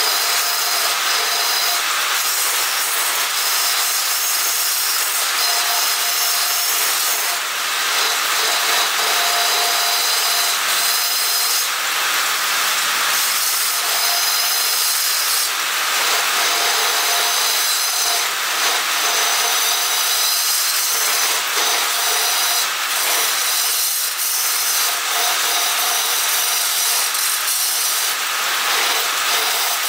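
Wood lathe spinning a cylindrical wooden vessel while a hand-held turning tool hollows out the inside: a steady scraping hiss of the tool cutting wood, with a few faint steady tones running through it.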